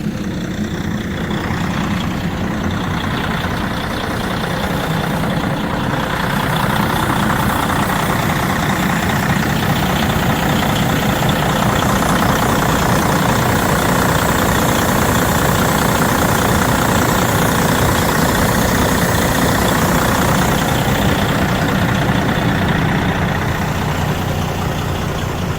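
Freightliner truck's diesel engine idling after starting on a new battery, starter and battery cable. It runs a little louder from about six seconds in until about twenty-one seconds.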